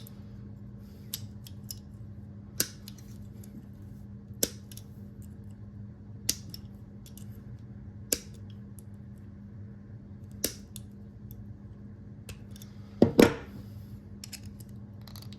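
Hand tool working on a small metal rivet in a cooler latch: sharp single clicks about every two seconds, like snips or pliers closing, then a louder double clunk near the end. A steady low hum runs underneath.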